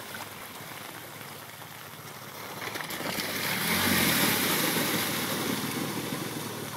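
Motorcycle engine and spray of water as a motorbike rides through a shallow river ford. It passes close and is loudest about four seconds in, then fades as it rides away.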